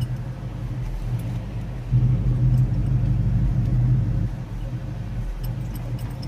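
Car engine idling, heard from inside the car's cabin: a steady low hum that grows louder for about two seconds in the middle.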